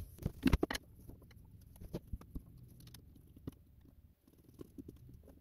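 Handling noise from a manual marine toilet's salt-water intake hose and its plastic fitting: a quick run of sharp clicks and knocks in the first second as the hose goes back on. Then fainter, scattered ticks as a screwdriver tightens a metal hose clamp on it.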